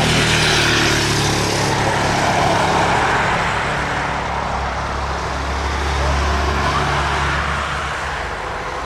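Boeing 737's CFM56 turbofan engines at taxi power: a steady jet rumble with a hiss over it, the hiss loudest in the first second or two.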